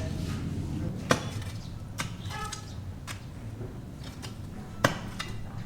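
A few sharp knocks at uneven intervals over a low steady hum, the loudest about a second in and again near the end.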